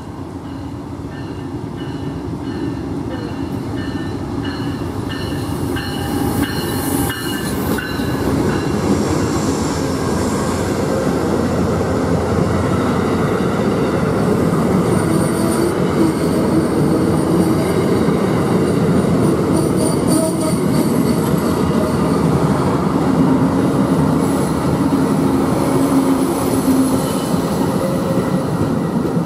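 Amtrak passenger train's stainless-steel cars rolling past at close range, a loud steady rumble of wheels on rail that builds over the first several seconds and holds, with faint steady high-pitched wheel tones over it. For about the first eight seconds a grade-crossing bell rings in an even rhythm.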